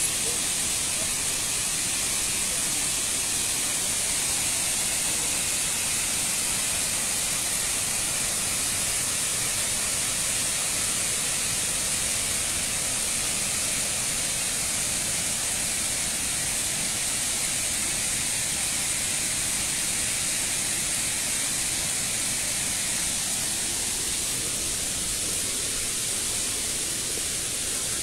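Steady rush of a waterfall: a constant hiss of falling water, even in level throughout.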